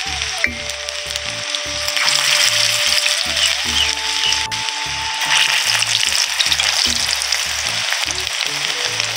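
Battered egg-and-onion pakoras sizzling as they deep-fry in hot refined vegetable oil in an iron kadai, the sizzle growing louder about two seconds in and again about five seconds in as more pakoras go into the oil. Background music plays underneath.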